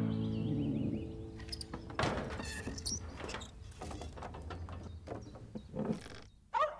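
Music fades out, then a horse-drawn wagon's scattered wooden knocks and creaks sound, with a short horse whinny near the end.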